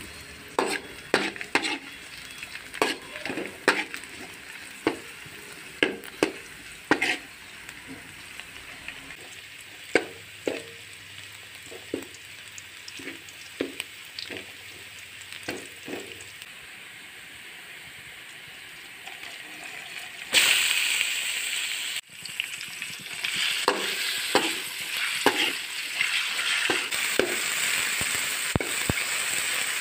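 A metal spoon scrapes and clinks against a stainless steel wok as garlic, onion and ginger sauté in a little oil with a faint sizzle. About twenty seconds in, a much louder sizzle sets in, and by the end meat is frying in the hot oil while the stirring clinks go on.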